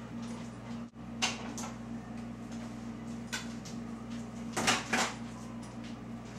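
A dog moving about a hard kitchen floor: a few scattered clicks, then a short cluster of louder knocks and clatter about two-thirds of the way through, over a steady low hum.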